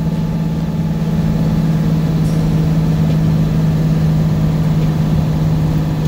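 Semi truck's diesel engine held on its Jake (engine compression) brake at setting three, a steady low drone heard inside the cab as the truck holds its speed down a steep grade.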